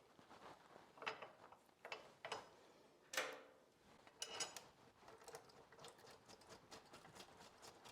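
Faint metal clicks and clinks as a steel skid-plate bracket is set against the motorcycle frame and its bolt is threaded in, one louder click about three seconds in. Near the end comes a run of small, even ticks, about three a second.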